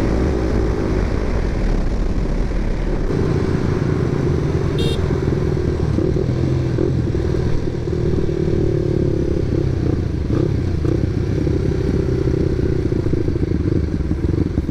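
Motorcycle engine running under way, with a steady rumble and an engine note that wavers up and down as the throttle changes.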